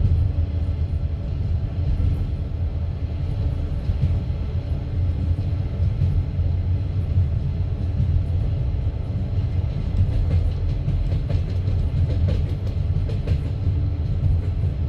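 Passenger train carriage running along the line, heard from inside: a steady low rumble of the wheels on the track, with the clicking of the wheels over rail joints coming through more clearly in the second half.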